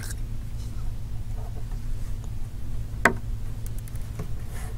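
Faint ticks and one sharp click about three seconds in from a precision Phillips screwdriver and tiny screws being taken out of an iPhone 5's metal LCD shield, over a steady low hum.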